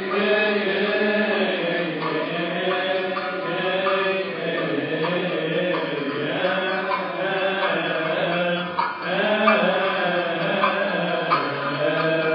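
Coptic liturgical hymn chanted by a group of voices in unison, a continuous line of long, wavering held notes.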